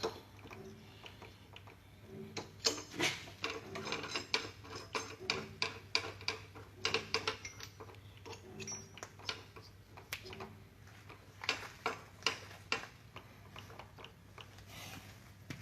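Metal hand tools clinking and clicking as they are picked up and set down, in an irregular series of light taps over a low steady hum.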